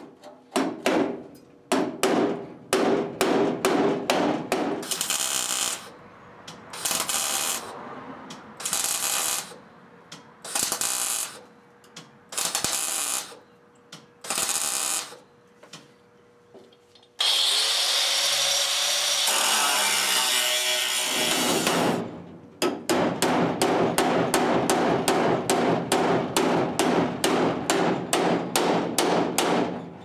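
Arc welding on a steel firewall patch: the welder crackles in short, irregular bursts as the seam is tacked and stitched. Near the middle comes a few seconds of one steady loud whine with a high tone, and then a fast even run of sharp metal knocks, about three a second, to the end.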